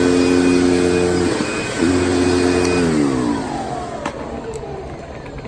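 Hoover Insight 100 vacuum cleaner motor running with a steady hum, breaking off briefly about a second in, then switched off about three seconds in and winding down with a falling pitch, with a couple of clicks as it slows.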